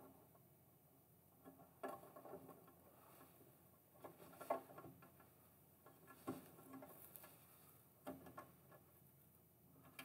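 Faint scratching and tapping of a felt-tip Sharpie marker drawing marks on Cat6 Ethernet cable jackets, in four short clusters about two seconds apart.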